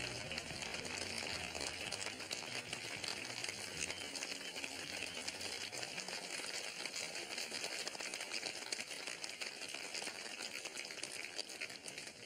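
Crowd noise from a gathering of people: a steady, dense crackling haze of many small sounds, with its lower part thinning a little after about halfway.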